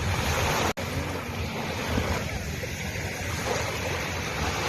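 Sea waves washing onto a beach, a steady surf noise with wind buffeting the microphone. The sound cuts out for an instant less than a second in.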